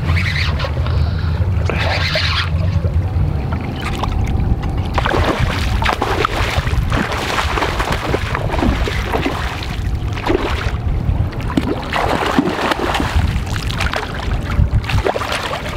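A hooked steelhead thrashing and splashing at the water's surface, over a steady low rumble.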